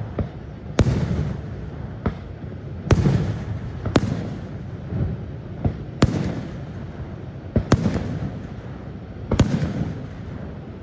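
Aerial fireworks shells bursting: about a dozen sharp bangs at irregular intervals, each followed by a low rumbling echo.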